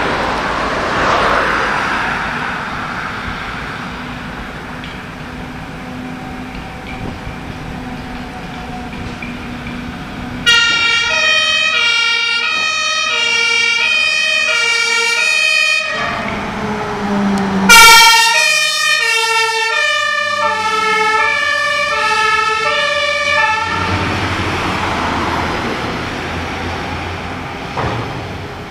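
Road noise of a passing vehicle, then a German fire engine's two-tone siren (Martinshorn) alternating between high and low notes about twice a second, with a brief loud blare about 18 seconds in. The siren's pitch drops as the Mercedes-Benz Atego LF 16/12 passes, and its diesel engine and tyres fade as it drives away.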